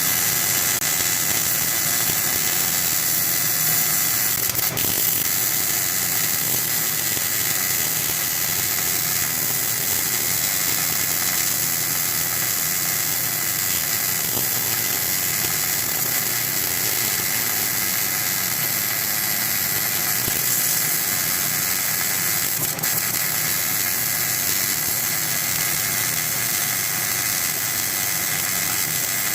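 MIG welding arc running steadily on a refrigerator compressor's steel shell, a continuous high hiss as the housing is welded closed. There are two brief clicks, one about five seconds in and one near the end.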